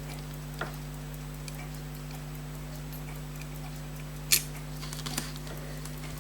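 A steady low hum with faint, regular ticking over it, and one sharp click about four seconds in, with two smaller clicks around it.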